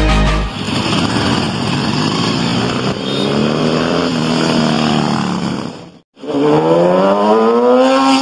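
Two motorcycles passing on a road. First a cruiser motorcycle rides by, its engine pitch rising and then easing. After a brief break near the end, a sportbike accelerates hard, its engine note climbing steadily.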